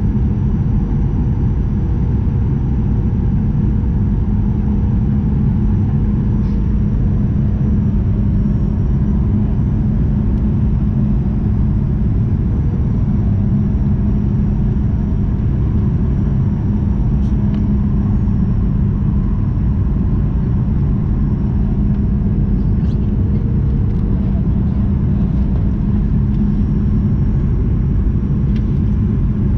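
Steady cabin roar of a Boeing 737-900ER in flight, a low rumble of engine and airflow with a constant hum underneath.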